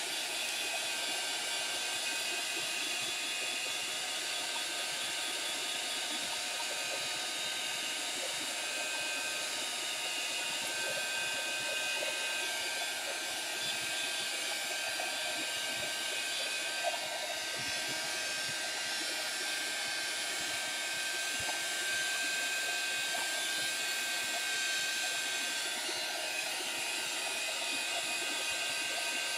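Handheld craft heat tool blowing a steady stream of hot air, drying wet Color Burst ink on paper.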